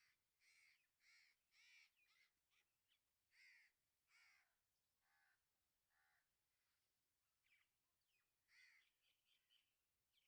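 Very faint bird calls: a run of about a dozen short calls at irregular spacing, each rising and falling in pitch.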